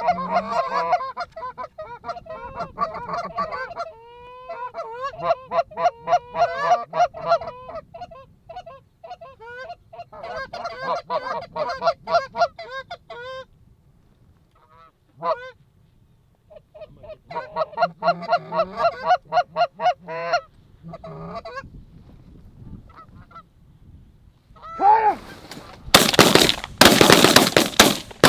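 Goose honking and clucking in rapid runs, broken by short pauses. About 25 seconds in, a quick volley of shotgun blasts.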